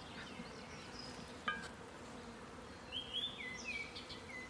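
Honeybees from a newly installed package buzzing steadily around an open hive, a low continuous drone. A few short high chirps come near the end.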